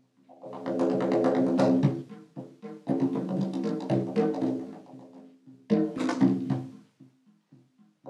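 Taiko barrel drums struck with bare hands in fast flurries, the heads ringing on under the strikes. Three flurries: a dense one from about half a second in to two seconds, another at three seconds that fades out by five and a half, and a short one near six seconds.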